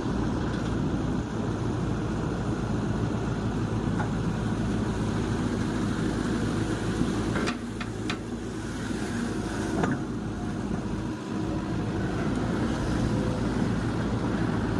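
Hitachi Zaxis 110 long-reach excavator's diesel engine running steadily, with a few sharp knocks about halfway through.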